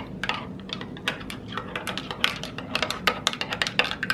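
A spoon stirring in a cup, clinking against the sides in quick, irregular taps as hot cocoa mix is stirred into hot water.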